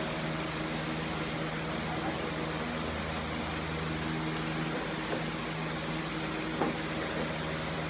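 A steady low hum of several tones, like a room's ventilation, with a couple of faint thuds in the second half as punches and kicks land.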